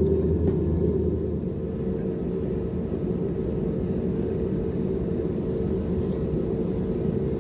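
Steady low rumble of an Airbus A320neo's engines heard from inside the passenger cabin, with a steady hum tone joining in about a second and a half in.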